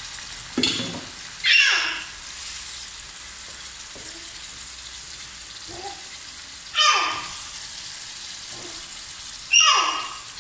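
Chopped fresh tomatoes and onions sizzling in a frying pan, stirred with a wooden spoon, with a knock or two of the spoon early on. Three loud pitched calls cut across it, each sliding steeply downward over about half a second, about a second and a half in, about seven seconds in and near the end.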